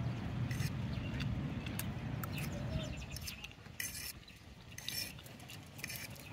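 Quiet eating sounds: scattered light clicks and smacks of chewing and fingers at a plate of fish and rice. A faint low rumble underneath fades out about halfway through.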